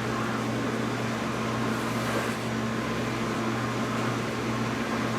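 A steady machine hum with a constant low drone under an even rushing noise, like a running fan or other appliance.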